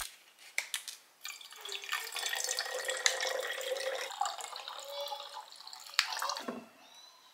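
Vinegar poured from a plastic refill pouch into a glass bottle, a steady splashing and gurgling of liquid that starts about a second in and stops near the end, with a sharp knock just before it stops.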